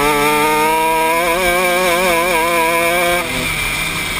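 Honda 125cc two-stroke shifter kart engine held at high revs, heard onboard, its note wavering slightly; about three seconds in the note drops away and the sound gets quieter.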